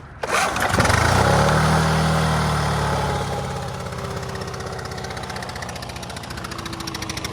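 Small two-stroke leaf blower engine pull-started cold on choke without priming: it catches right away, runs fast for a couple of seconds, then settles to a lower steady speed.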